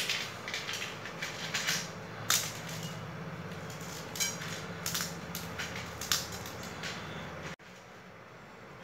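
Brittle dried kurdai being crumbled and snapped by hand, crackling in many irregular snaps as the pieces drop onto a steel plate. The crackling stops abruptly about seven and a half seconds in.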